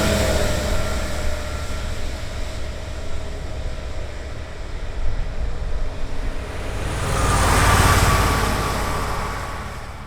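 Heavy vehicle engine running with a steady low rumble; one passes close and swells loudest about seven to nine seconds in, then fades away.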